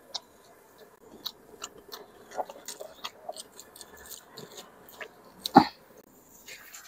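Close-up chewing and wet mouth sounds of a person eating rice and chicken liver adobo by hand, with many small clicks and smacks and one louder short sound about five and a half seconds in.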